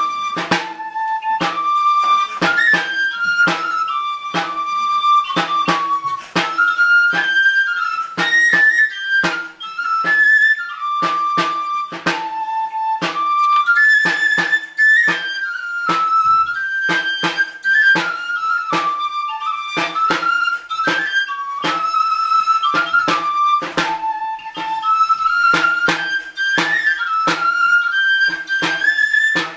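A high flute-like pipe playing a lively stepping dance tune, with a drum struck in a steady beat under it.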